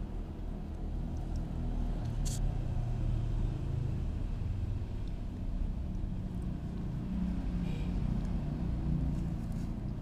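A steady low rumble, like distant traffic, with a sharp click about two seconds in.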